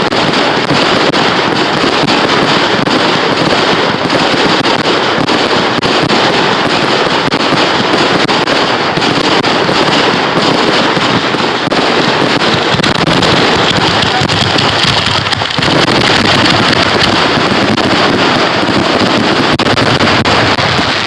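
Fireworks going off at close range in a loud, dense, unbroken crackle. About fifteen seconds in it dips briefly, then comes back fuller and deeper.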